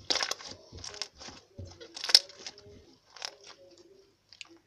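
Hands squeezing and stretching slime, giving a series of short irregular squishing pops, the loudest about two seconds in, thinning out near the end.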